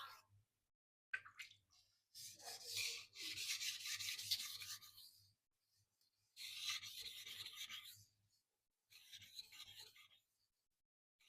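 Steel knife edge being stroked across a wet whetstone. It comes as four runs of gritty rasping strokes, the longest about three seconds, with short silences between the runs.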